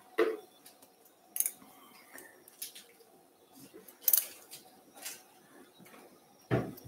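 Steel surgical instruments clicking and snipping: a string of short, sharp metallic clicks about a second apart, with a duller knock near the end.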